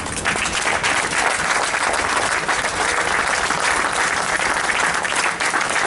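A crowd applauding: many hands clapping steadily together.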